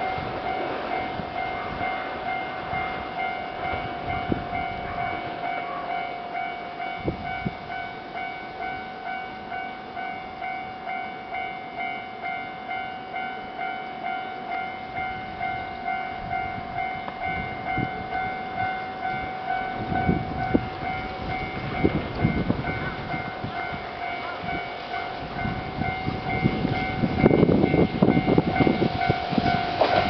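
Level-crossing warning bell ringing in a steady, evenly repeating electronic ding. Partway through, a Shimakaze limited express comes past, its wheel clatter and rumble growing until it is the loudest sound near the end.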